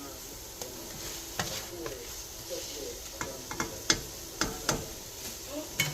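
Food sizzling in a cooking pot while it is stirred, a utensil knocking against the pot about eight times, the loudest knock a little past halfway.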